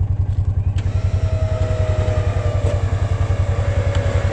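A machine engine idling steadily with an even low pulse, and a thin whine joining about a second in.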